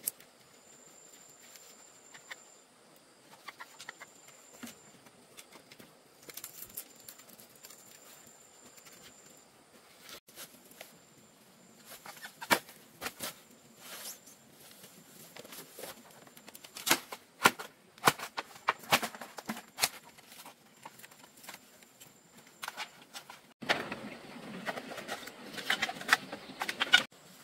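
Scattered sharp knocks and clicks of outdoor handwork, coming thicker from about halfway through, then a few seconds of dense rustling near the end.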